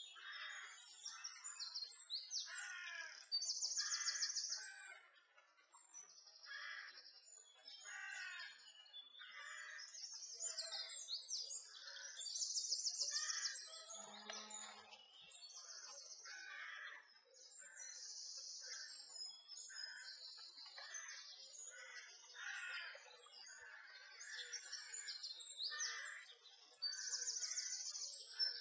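Several songbirds singing at once, a steady spring chorus of overlapping chirps and phrases with repeated high, rapid trills.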